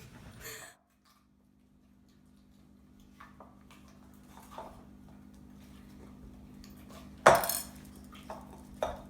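Bowl and spoon being handled: a few knocks and clatters, the loudest about seven seconds in, over a low steady hum.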